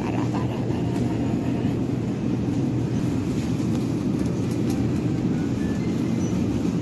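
Steady low hum and rumble of a supermarket's refrigerated display cases and air handling, with a few faint ticks and beeps from the store.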